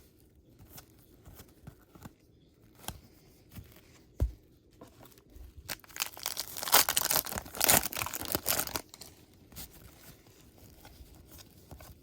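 A trading-card pack wrapper being torn open and crinkled for about three seconds in the middle, after a single soft thump. Light clicks of cards being handled come before and after.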